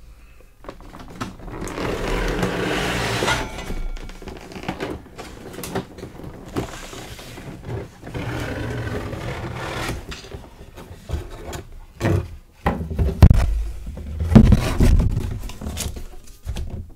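A toy figure's cardboard box and packaging being handled: sliding and scraping with rustling, then a run of sharp knocks and thumps about twelve to fifteen seconds in.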